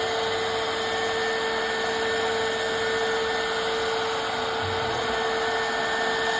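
Custom CNC machine running steadily, a constant whine over an even mechanical hiss.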